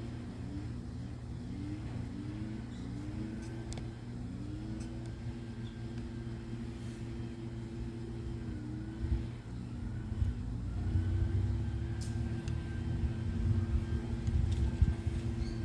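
A vehicle engine running steadily, its pitch rising briefly several times in the first few seconds and a couple more times later, over a low rumble.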